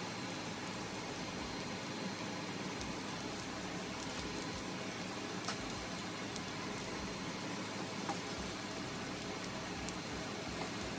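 Pots of water at a rolling boil on a stove, a steady bubbling hiss with a few faint clicks.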